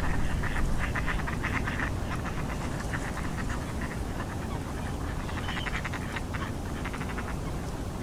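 A flock of ducks calling on open water: several bursts of rapid quacking chatter, with a short rising call about halfway through, over a steady low rumble of wind.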